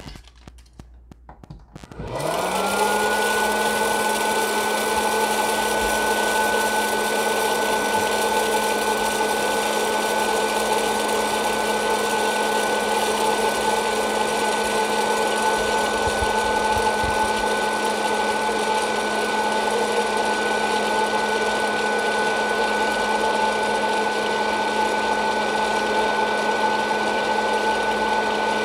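Hot-air popcorn popper switched on about two seconds in: its fan motor spins up with a quick rise in pitch, then runs with a steady whirring hum and rush of air.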